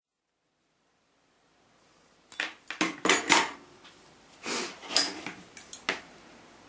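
Kitchen scissors cutting thin brass sheet: a run of sharp metallic snips and clicks in irregular clusters, starting about two seconds in.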